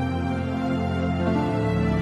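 Background music made of slow, sustained tones, with no speech.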